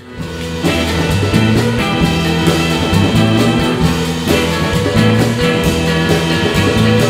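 Upbeat indie band song with drums and a steady beat, fading up over the first second.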